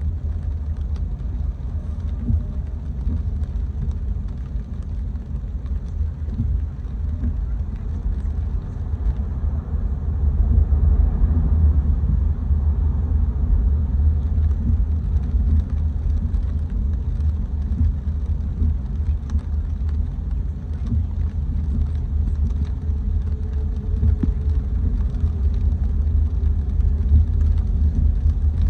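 A car driving on wet city streets: a steady low rumble of engine and tyres, a little louder from about ten seconds in.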